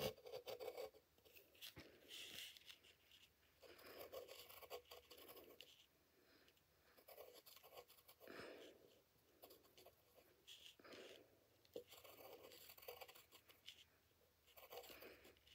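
Pencil lead scratching faintly on paper in short, irregular strokes with brief pauses between them.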